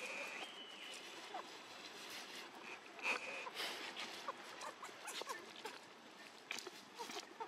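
Dry leaf litter rustling and crackling in scattered light ticks as a young monkey walks over it, with brief high-pitched squeaks near the start and about three seconds in.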